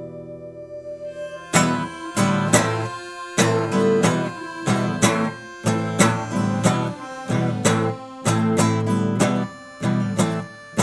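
Background music on acoustic guitar: a held chord fades away, then picked notes and strums start about a second and a half in and carry on in a steady rhythm.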